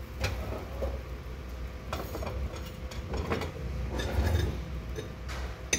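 Cooking utensils tapping and clinking against a griddle pan and an oil bowl, several short sharp knocks with the sharpest near the end, over a low steady rumble.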